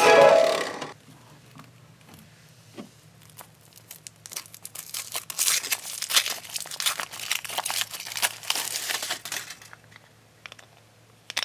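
A crinkly wrapper being crumpled and torn open by hand: a few seconds of dense, irregular crinkling. This fits unwrapping a chocolate surprise egg.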